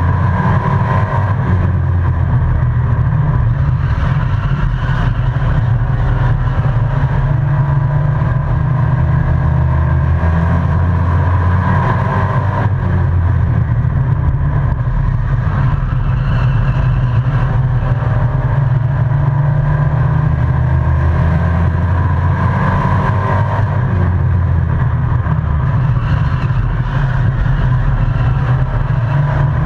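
Race truck engine at racing speed, heard from inside the cab, its note rising and falling every ten seconds or so as it accelerates and lifts around the oval.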